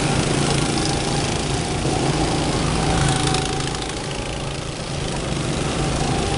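Several go-kart engines running steadily as karts drive around the track, a constant small-engine drone.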